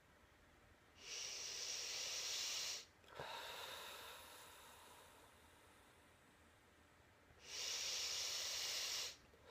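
A man breathing slowly and deeply close to the microphone: two long breaths in, each followed after a brief pause by a breath out that fades away.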